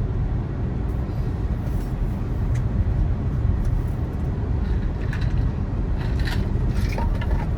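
Steady low road and tyre rumble inside the cabin of a Tesla Model 3 electric car driving along, with a few faint clicks near the end.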